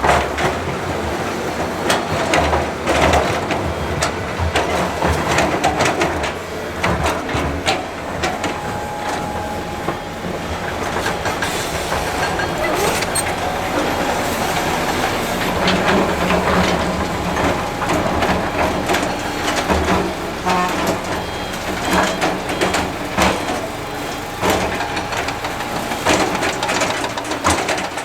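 Heavy construction machinery at work: a diesel engine running steadily under frequent clanks and knocks of metal and rock.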